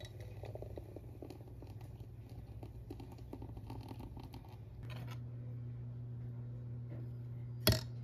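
Milk poured into a glass bottle of iced espresso, a faint crackling, splashing patter that stops about five seconds in. After that a steady low hum remains, and a single sharp click sounds near the end.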